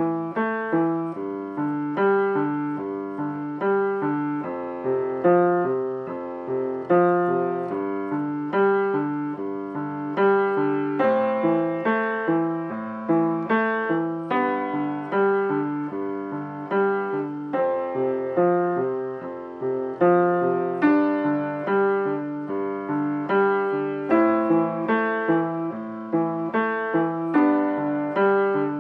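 Acoustic upright piano played with both hands: a steady, evenly paced stream of notes, a melody over a lower accompaniment.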